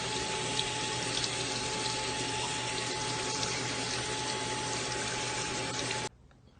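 Steady rush of running water, like a tap left running, with a thin steady whine through it; it cuts off abruptly near the end.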